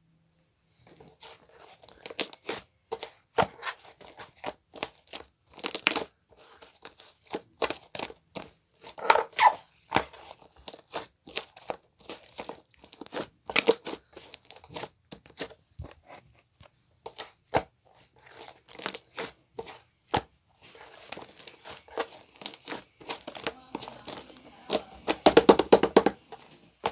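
Close crinkling and crackling from something being handled, as an irregular run of sharp clicks and pops, with a dense, louder burst of crackling near the end.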